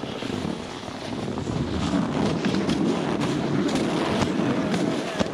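Snowboard sliding over packed snow: a steady rough scraping hiss, broken by many short scrapes of the edges.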